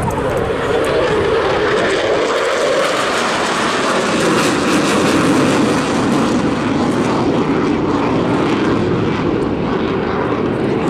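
Eurofighter Typhoon FGR4 fighter's twin EJ200 turbofans at high power with reheat lit as it flies away, a loud, steady jet noise whose pitch slowly shifts.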